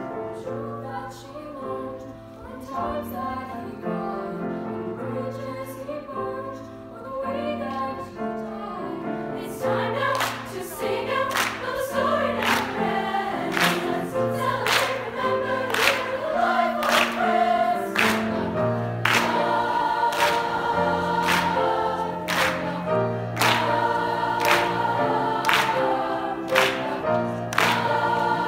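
Girls' choir singing with grand piano accompaniment. About ten seconds in, sharp percussive hits join in, keeping a steady beat a little over one a second, and the singing grows fuller and louder.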